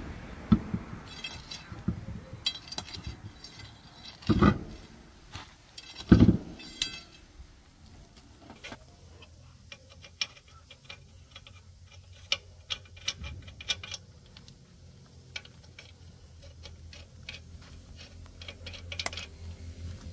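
Metal tools knocking and clinking: three loud sharp strikes in the first six seconds or so, then a long run of light ticks and clinks. A low steady hum comes in about halfway through.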